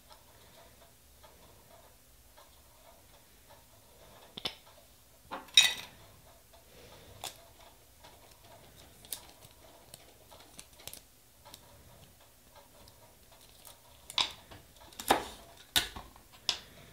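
Scattered light clicks and taps of nail-stamping tools being handled and set down: stamping plate, scraper, stamper and polish bottles. The sharpest clicks come about five and a half seconds in and in a cluster near the end.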